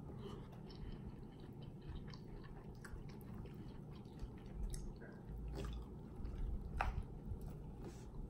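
A man chewing food close to the microphone: wet, smacking mouth sounds with scattered clicks, the sharpest a little before the end.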